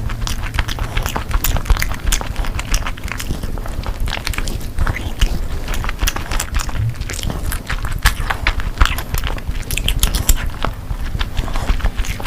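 Close-miked chewing: a person eating, with dense, irregular small wet clicks and smacks of the mouth.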